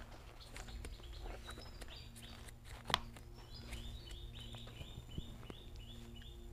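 Paper banknotes being counted by hand: faint rustles and flicks of the notes, with one sharper flick about three seconds in. Behind it a bird chirps in a quick repeated series, about three calls a second, starting about a second and a half in.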